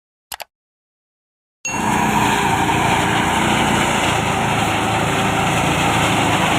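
Two brief clicks, then a motor-driven rice threshing machine running steadily; its noise cuts in abruptly about one and a half seconds in.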